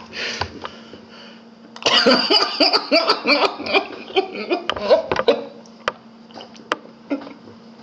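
A man laughing hard in a fit of short, cough-like bursts, starting about two seconds in and dying away after about five seconds, over a faint steady hum.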